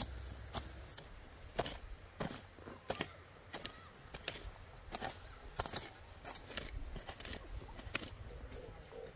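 Hand hoes chopping into loose soil: a string of sharp, irregular strikes, about one or two a second, from two hoes working at once.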